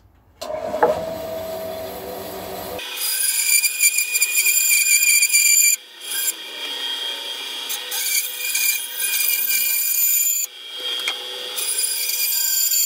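Bandsaw fitted with a narrow blade running and cutting curves through a glued-up solid-wood guitar body blank: a steady high whine with the rasp of the cut. It starts about half a second in and briefly drops away twice.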